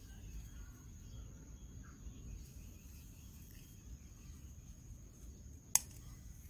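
A steady, high, thin insect trill over a low outdoor rumble, with one sharp click near the end as hands work among the eggplant stems.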